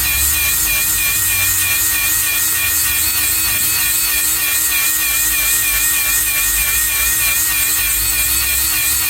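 Handheld power grinder running steadily, sharpening a cutter tooth on the mill of a Bandit Beast 4680 horizontal grinder: a continuous high whine with a slight warble over grinding hiss.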